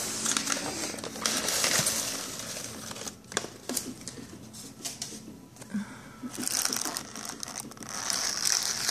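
Styrofoam packaging being handled as the box is opened: the foam lid scraping and rubbing against the foam case in two spells of rustling, with a few sharp clicks about three seconds in.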